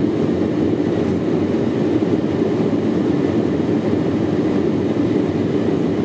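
Steady engine and airflow noise of an airliner on descent, heard inside the passenger cabin.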